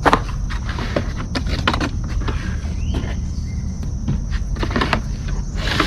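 A cardboard shipping box being opened and its packaging handled: a run of irregular crackling rustles and small knocks over a steady low rumble.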